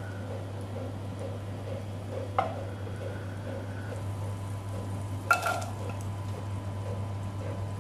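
Butter sizzling in a pot as a wooden spatula stirs it, over a steady low hum. A sharp knock about two and a half seconds in, then a louder clatter with a brief ring a little past five seconds as chopped red onions go into the pot.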